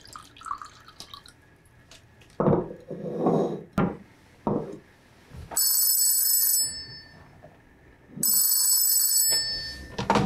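An old rotary desk telephone's bell rings twice, each ring about a second long, after a few splashing liquid sounds and a sharp knock.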